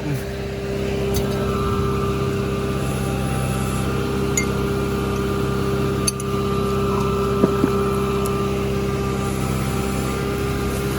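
Excavator engine running steadily at an even pitch, with a few faint clicks over it.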